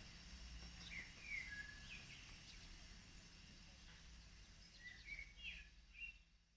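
Faint, short chirps of small birds at a garden feeder, a few about a second in and a few more near the end, over a quiet steady outdoor background.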